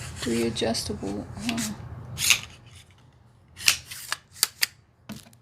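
Ring light tripod being handled: a rub and then several sharp clicks over the second half as its parts are moved and adjusted, with a few soft murmured words near the start.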